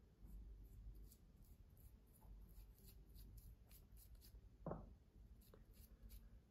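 Very faint, scratchy strokes of a hair-dye tint brush drawing dye through wet hair, with one brief, slightly louder sound about two-thirds of the way through.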